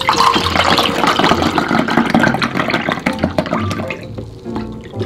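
Cold-brewed dashi poured from a plastic pitcher into a measuring cup: a steady splashing stream that tapers off after about three and a half seconds, with background music playing.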